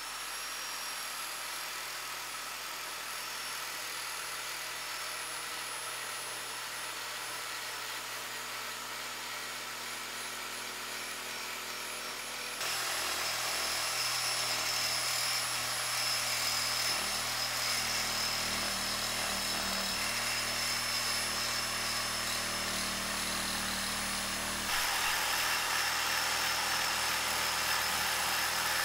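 Corded reciprocating saw running steadily as its blade cuts through an old iron pipe. The sound steps up abruptly about twelve seconds in and again near the end.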